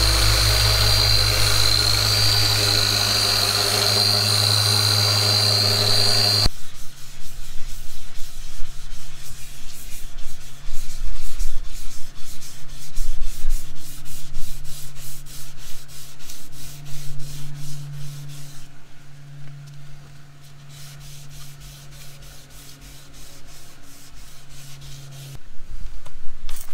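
A Porter-Cable random orbital sander runs steadily on the gelcoat for about six seconds, then cuts off abruptly. After that, sandpaper is rubbed by hand over the gelcoat in quick, rhythmic back-and-forth strokes.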